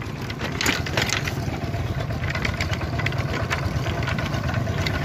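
Two-wheel walking tractor's engine chugging steadily as it tows a wooden cart over a rutted dirt road, heard from the cart, with the cart rattling and knocking over the bumps.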